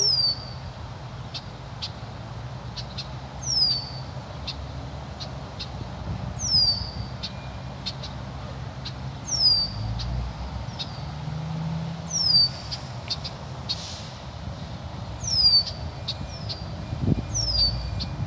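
A bird calling repeatedly, each call a short note that slides down in pitch, about every three seconds, with a low rumble underneath.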